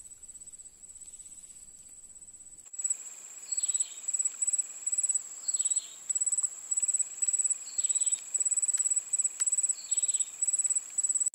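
Insects chirping in a high-pitched trill, steady and faint at first, then louder in rapid pulsing bursts from about three seconds in. A fainter short call repeats about every two seconds underneath.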